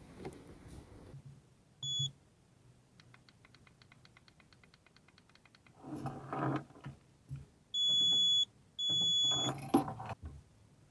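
Electronic beeper giving one short beep, then a fast run of faint ticks, about nine a second, then two longer beeps about a second apart. Brief handling clatter comes between and after the beeps.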